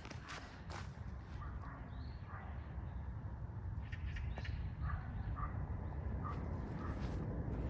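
Faint, short bird calls scattered over a steady low rumble of wind on the microphone.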